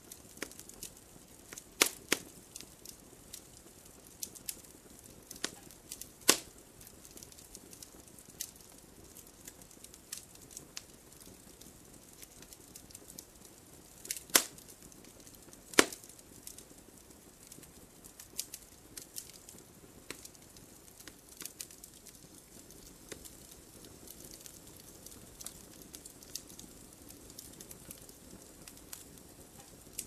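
Campfire crackling: irregular sharp pops and snaps over a soft, steady rustle of burning wood, with a few louder pops scattered through.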